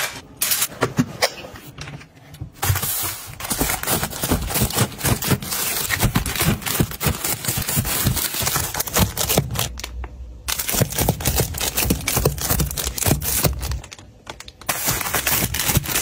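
Close-up handling sounds of household restocking: a rapid string of taps, clicks and scrapes as glass and plastic bottles are moved in a kitchen rack, and the crinkling of plastic-wrapped tissue packs being slid and stacked on a shelf. It stops briefly a few times between clips.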